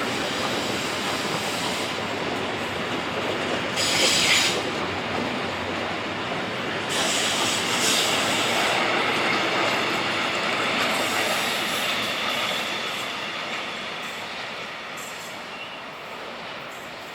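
Train rolling past with steady wheel-on-rail noise. Its wheels squeal briefly about four seconds in and again for a couple of seconds a little later, then the sound fades as the train moves off.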